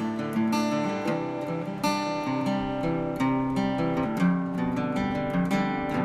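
Background music on acoustic guitar: plucked and strummed chords, several notes a second.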